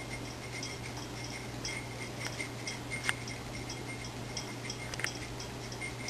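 Faint, regular ticking, about three ticks a second, like a clock, over a steady low hum, with a few sharper clicks.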